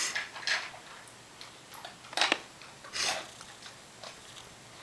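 About five separate light knocks and clicks, spaced unevenly over a few seconds.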